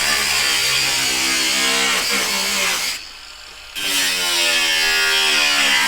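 A power tool run hard in two bursts, each starting and stopping abruptly, with its motor pitch sliding as it loads. Two runs of about three seconds and two and a half seconds, separated by a short pause.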